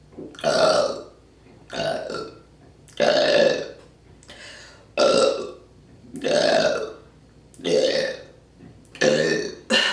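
A woman burping loudly on purpose, seven burps in a row about one to two seconds apart, bringing up swallowed gas.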